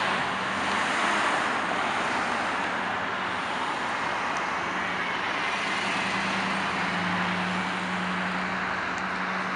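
Steady city street traffic noise from passing cars, with a low steady hum underneath that grows stronger past the middle.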